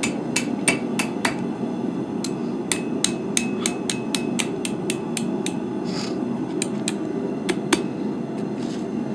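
Blacksmith's hammer striking hot steel on an anvil while a meat-flipper handle is forged. The blows come in quick runs of about three a second with short pauses, some with a brief ring, over a steady low hum.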